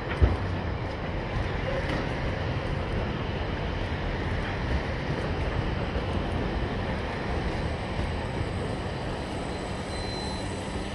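Freight wagons rolling over the rails with a steady low rumble, and a diesel locomotive running alongside. One sharp knock comes just after the start.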